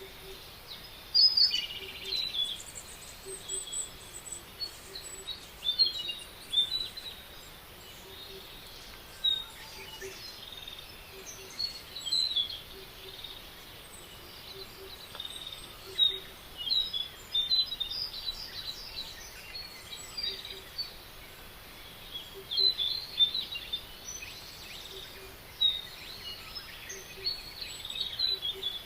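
Several songbirds chirping and trilling in short bursts over a steady background hiss, with a faint low note repeating about every second and a half.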